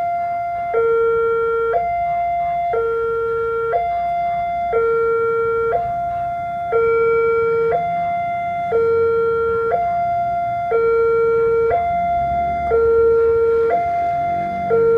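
Railway level-crossing warning alarm sounding: an electronic two-tone signal alternating steadily between a higher and a lower note, each held about a second, the lower note louder. A faint low rumble builds beneath it in the second half.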